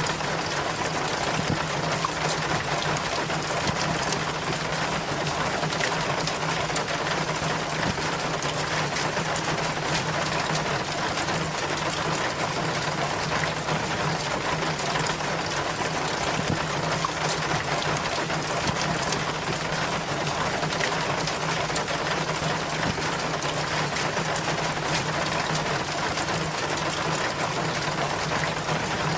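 Rainwater pouring steadily down a rain chain, a dense, even rush of splashing water, with a steady low hum underneath.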